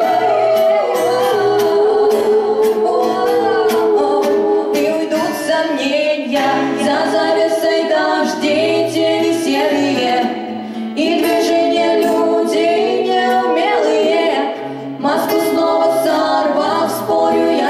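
Several female voices singing a song together, accompanied by a strummed acoustic guitar.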